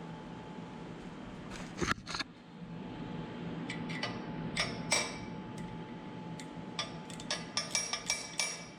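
Light metal-on-metal clinks and taps from hand tools on steel loader parts: a couple near two seconds in, more around five seconds, then a quick run of ringing taps near the end, over a steady low hum.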